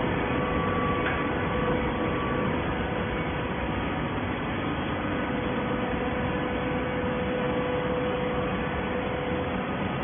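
Automatic horizontal baler running: a steady industrial machine noise with a thin whine held at one pitch.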